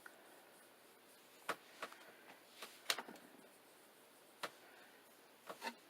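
Light, sharp taps and clicks of makeup being handled, about eight at irregular intervals, the loudest a pair about three seconds in.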